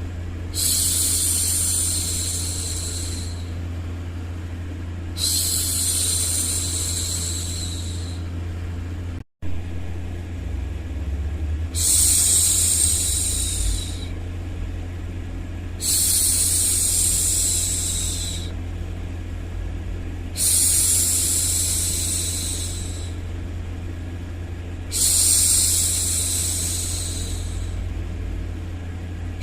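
A woman's voice shushing, six long 'shhh' sounds of two to three seconds each at an even pace, over a steady low rumble of background noise. The sound cuts out for an instant about a third of the way through.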